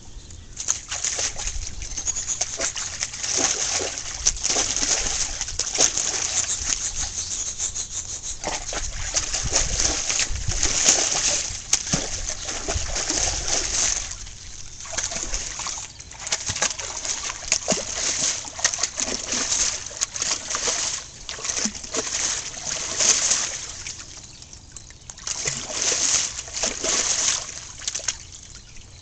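A dog splashing and wading in a garden pond, the water sloshing and splashing in irregular bursts, with short lulls about halfway through and again near the end.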